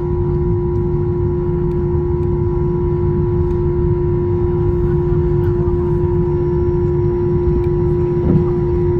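Cabin noise of an Airbus A321 taxiing: a steady low engine rumble with a constant droning hum over it.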